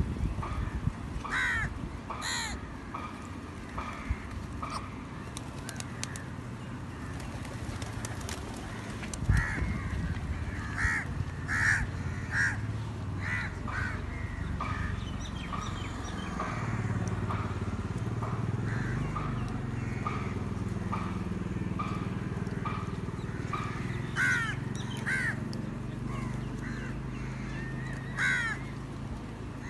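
A flock of house crows cawing over and over, a few calls louder and closer than the rest. From about halfway through a low, steady engine-like hum runs underneath.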